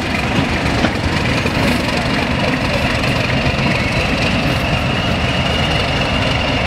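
Diesel engine of the Class 31 locomotive D5830 running steadily as the train draws away, with a steady high whistle over it that grows stronger about halfway through.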